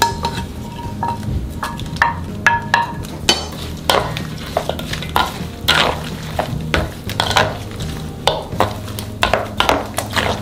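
Kimchi seasoning of blended chili paste and cooked flour paste being stirred together with sliced onion and scallions in a bowl, an irregular run of short scrapes.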